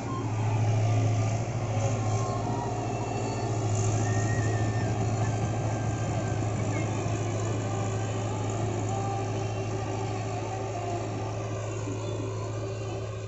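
Diesel engine of a JCB compact tracked excavator running steadily while it works its arm and bucket clearing scrub, a steady low drone.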